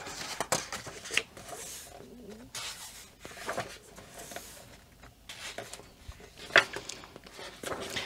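Paper pages of a softcover coloring book being turned and smoothed flat by hand: soft rustling and brushing of paper, with a few light taps.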